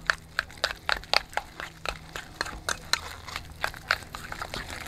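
A spoon stirring a thick cream cheese and mozzarella filling in a stainless steel bowl, clinking against the metal about three to four times a second.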